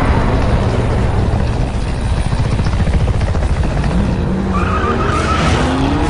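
Car engine revving hard with tyre noise, its pitch rising in the last couple of seconds.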